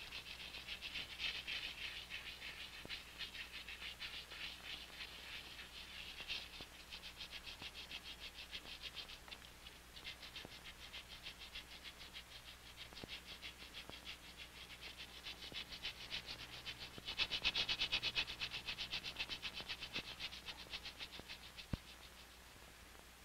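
A chorus of rapid, pulsing animal calls: a high trill of many quick, even pulses that swells to its loudest about three-quarters of the way through, then fades. A single click comes near the end.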